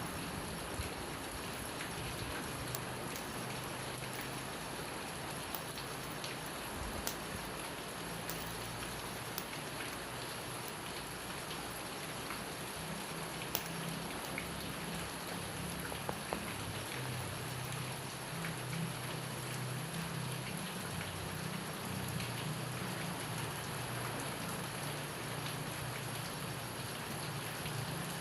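Steady rain falling and pattering, with a sharp click now and then.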